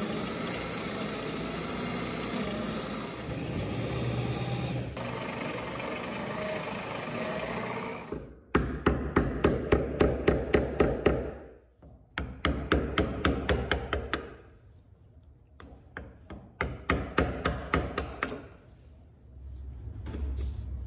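A corded electric drill runs for about eight seconds, boring at the hull's keel where a bronze rudder gudgeon is being fitted; its pitch shifts about five seconds in. Then come three bursts of quick, sharp hammer taps, about three or four a second.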